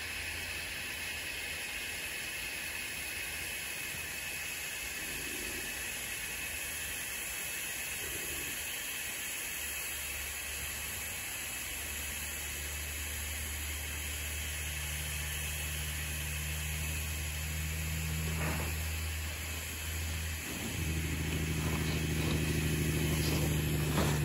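Steady wind hiss and low rumble on the microphone, growing louder over the second half. Near the end come short scrapes of a snowboard's edges carving packed snow.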